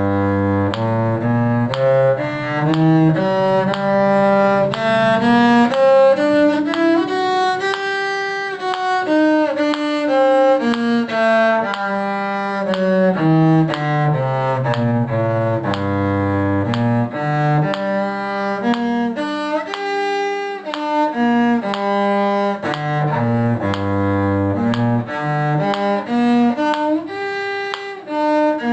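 A cello plays a two-octave G harmonic minor scale, one bowed note at a time, climbing to the top about eight seconds in and coming back down. The G minor arpeggio follows, going up and down.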